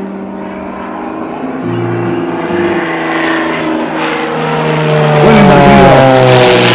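Aerobatic propeller plane's engine growing louder as the plane comes over, its pitch falling through the last couple of seconds as it passes.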